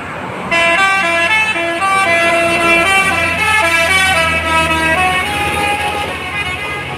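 Bus 'telolet' Basuri multi-tone horn playing a quick melody of changing notes for about four seconds, ending on a longer note, over the low hum of the bus engine.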